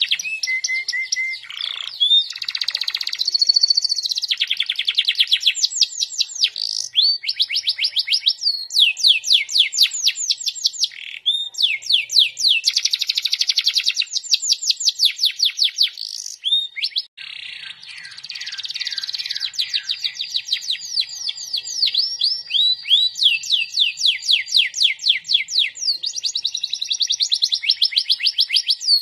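Domestic canary singing without pause: fast trills of repeated down-sweeping notes, one phrase running into the next, with a short break just past halfway.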